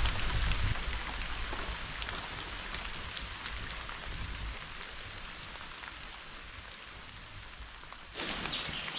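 Steady rain falling, an even hiss full of small separate drop hits. A low rumble under it fades away over the first half, and a louder rush of noise starts suddenly near the end.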